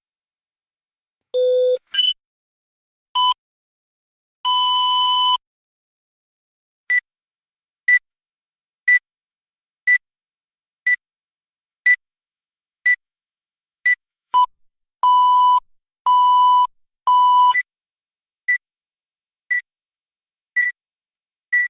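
Electronic beeps of an autoclave signalling that its cycle has finished. A few single tones of different pitch come first, then short high beeps about once a second, three longer, lower beeps in a row, and then the short beeps once a second again.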